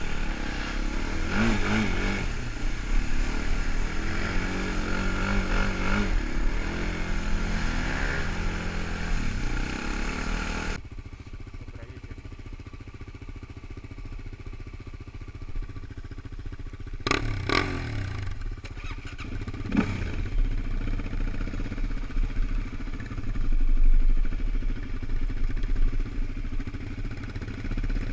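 Sport quad engine running under varying throttle while riding over leaf-strewn ground; then, after a sudden cut, quieter steady idling of the quads, a couple of sharp knocks, and an engine revving up a few seconds before the end.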